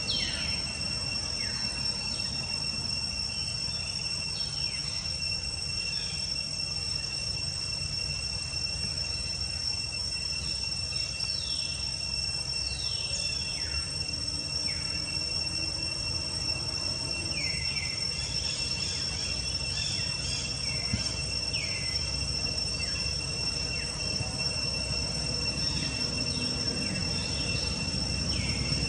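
Steady high-pitched insect drone in two constant tones, with short falling chirps scattered through it and a low steady rumble beneath.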